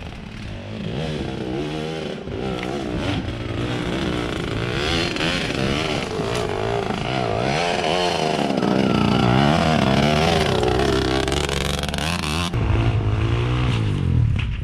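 Dirt bike engine revving up and down again and again as the rider works it up a steep trail under load. It grows louder as the bike comes close and is loudest about two-thirds of the way through.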